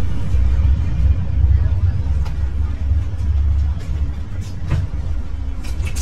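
Bus engine and drivetrain running with a steady low rumble, heard from inside the bus while it drives, with a few light clicks and rattles.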